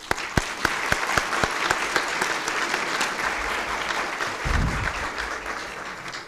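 Audience applauding, many hands clapping together, stopping at the end.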